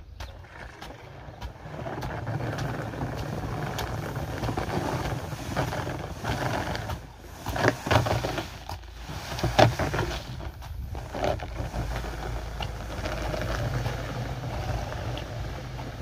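A black plastic barrel and a tarp dragged on a rope across asphalt behind a walking horse, making a steady rough scraping rumble, with a few sharper knocks around the middle.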